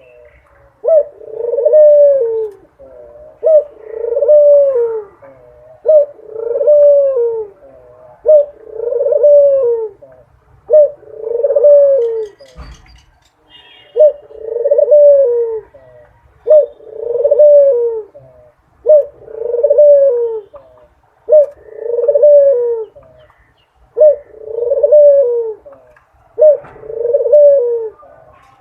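A dove cooing over and over, each call a short note followed by a longer falling coo, repeated about every two seconds.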